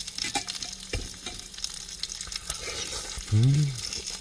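Meat sizzling on a disposable grill plate, with occasional clicks as it is moved about. Near the end a man gives a short low hum, the loudest sound here.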